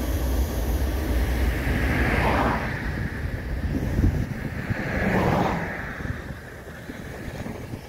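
Road and wind noise from a car moving along at low speed, with a low rumble that fades about four seconds in and two swells of hiss, near two and five seconds.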